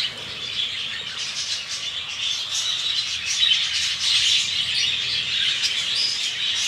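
Birds chirping, a dense, continuous chorus of many small, quick calls.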